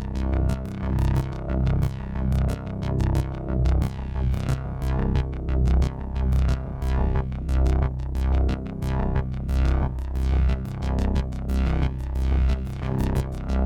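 Techno played on a Behringer DeepMind 12 analog polyphonic synthesizer over a Roland TR-8 drum machine beat. A heavy bass and kick pulse about twice a second, with fast hi-hat ticks on top.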